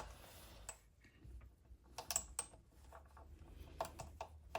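Light, irregular plastic clicks and taps, about half a dozen, as a small plastic retaining clip is handled and pushed back into place on a DAB radio's internal frame.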